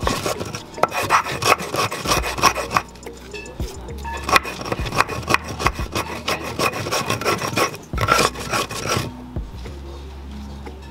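Hand stone scraping back and forth over a flat grinding stone, crushing potash (kanwa) into powder, in quick repeated strokes that ease off near the end.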